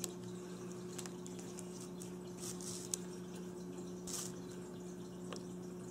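A few soft rustles and light clicks as multimeter test-lead probes are handled and set against the terminals of a motor start capacitor, over a steady low hum.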